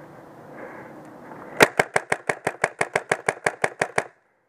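Halo MA5B-styled paintball marker firing a rapid string of about fifteen shots, about six a second, the first the loudest, then stopping abruptly.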